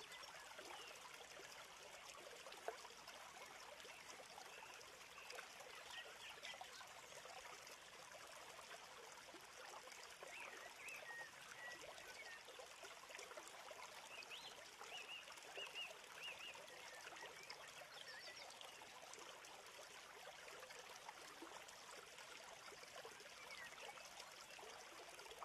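Near silence: faint steady hiss of room tone with scattered faint high chirps, and a single soft click about three seconds in.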